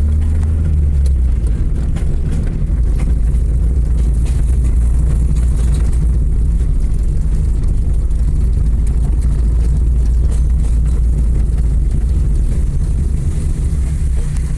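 Steady low rumble of a road vehicle in motion, running evenly without a break.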